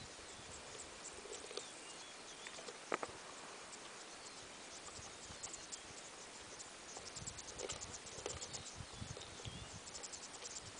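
Faint open-air ambience: a soft steady hiss with scattered small ticks and clicks, one sharper click about three seconds in. The ticking grows denser about seven seconds in, along with low rumbles.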